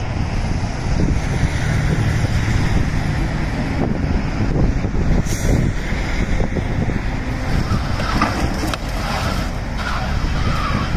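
Tow truck's engine running as it hauls a sedan on its wheel-lift, with a steady low rumble of wind on the microphone.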